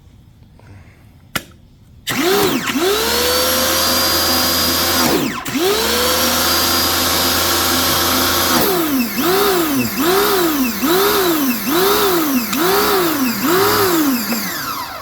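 Compact electric pressure washer's motor and pump starting up and running, settling to a steady pitch; it drops out briefly and restarts, then pulses up and down about once a second before stopping.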